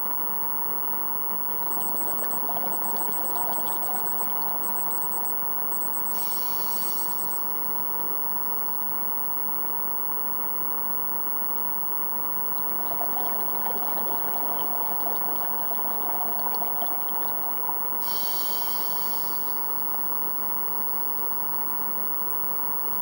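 Underwater sound picked up by a diver's camera: a steady rushing water noise. A scuba diver breathes through a regulator, with short hissing inhalations about six seconds in and again near eighteen seconds, and a bubbling rush of exhaled air before each.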